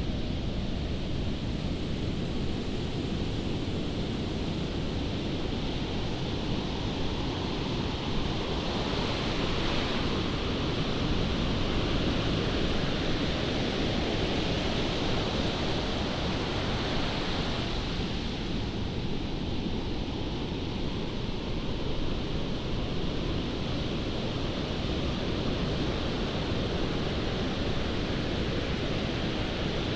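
Strong wind rumbling on the microphone over the steady wash of ocean surf.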